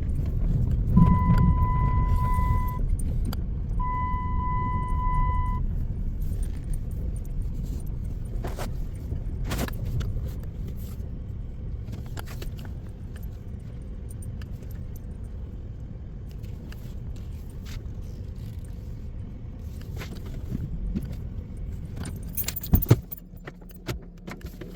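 Car engine running with a low rumble as it is parked, with two long electronic beeps a few seconds in and scattered clicks. Near the end a loud click comes and the engine rumble stops, followed by a jingle of keys.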